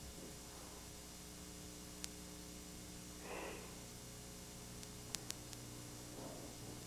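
Steady tape hiss and low hum from an old home-video recording. About three seconds in, a karate practitioner gives a faint, sharp exhale on a technique during his kata. A few faint ticks are also heard.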